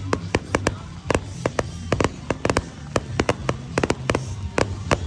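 Fireworks going off in a rapid barrage: sharp bangs and cracks, several a second at uneven spacing, over a steady low rumble.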